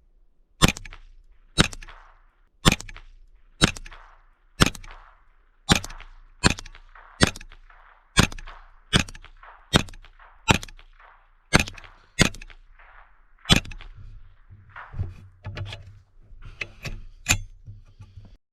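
.22 LR rifle firing a string of about fifteen shots in quick succession, roughly one a second, each sharp crack followed by a short ring, then a few weaker cracks near the end.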